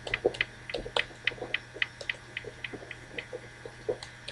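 Typing on a computer keyboard: irregular key clicks, several a second.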